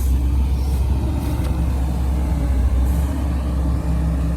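Heavy diesel engine running steadily at a constant speed, a deep even drone.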